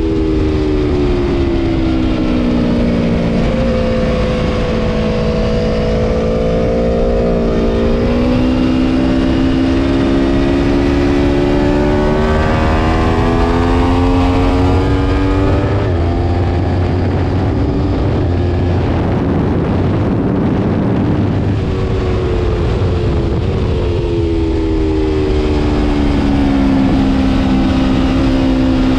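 Aprilia Tuono V4 Factory's V4 engine at race pace, heard from a camera mounted on the bike: the engine note climbs and drops again and again with throttle and gear changes. Heavy wind rush runs under it and covers the engine for a few seconds past the middle.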